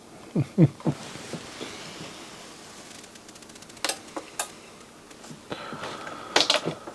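Scattered sharp clicks and small clatter from handling the receiver and bench tools: a quick run of light ticks, then a few louder clicks. A short sliding vocal sound comes at the start, and a faint steady high tone comes in near the end.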